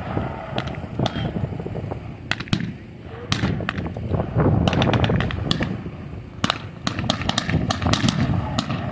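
Reenactors' blank-firing small arms shooting irregularly: single sharp cracks and quick clusters of shots, over a low background rumble.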